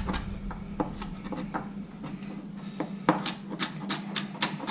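Kitchen knife chopping baby carrots on a cutting board: a few scattered knocks, then steady strokes about four a second from about three seconds in.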